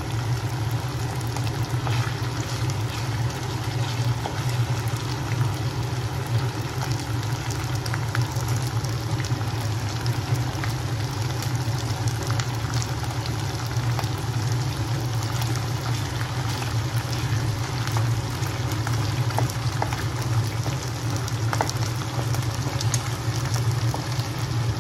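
Hot oil sizzling and crackling steadily in a kadai as curry leaves and slit green chillies fry in it, over a steady low hum.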